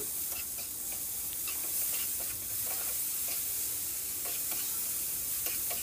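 Cubed ridge gourd sizzling as it fries in oil in a frying pan, stirred with a spatula that scrapes and taps against the pan in small irregular strokes over a steady hiss.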